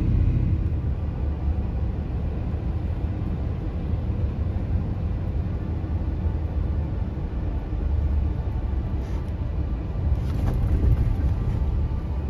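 Steady low rumble of a vehicle driving, its engine and tyre noise heard from inside the cabin, getting a little louder about ten seconds in.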